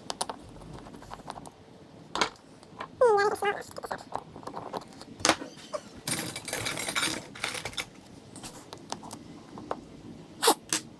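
Small metal carburetor parts and tools being handled: scattered clicks and taps, a brief falling pitched sound about three seconds in, and a hiss of about a second around six seconds in.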